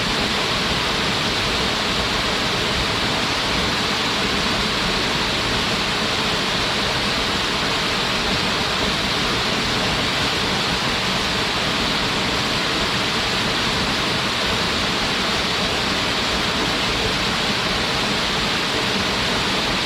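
Small mountain waterfall pouring steadily: a constant, even rush of falling water with no breaks.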